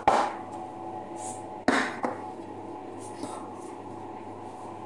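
Two sharp clanks of a metal cooking pot knocking against a tray, about a second and a half apart, each with a short ring, as the pot of magloubah is turned over; a steady hum runs underneath.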